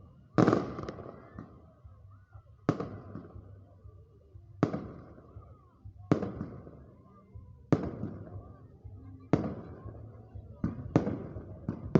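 Fireworks bursting overhead: a sharp bang every second and a half to two seconds, each trailing off in a fading rumble and crackle, with the bangs coming closer together near the end.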